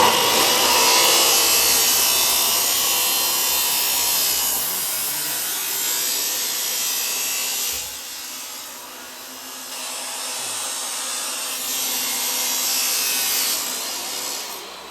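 Angle grinder grinding a fresh weld clean on a tractor's new exhaust silencer, a steady harsh hiss of metal being ground. It eases off about eight seconds in and picks up again a few seconds later.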